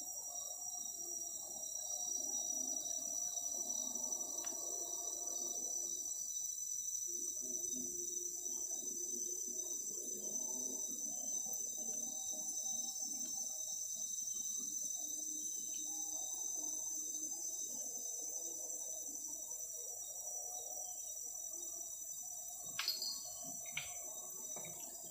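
Steady high-pitched chorus of insects such as cicadas and crickets, with fainter shifting sound lower down and a few sharp clicks near the end.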